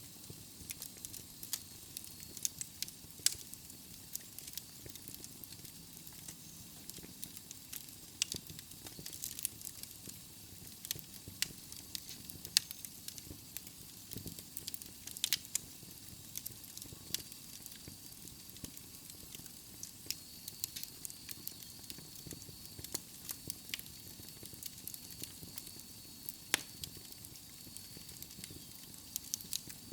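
Wood fire burning in a fireplace: logs crackling with irregular sharp pops over a soft hiss.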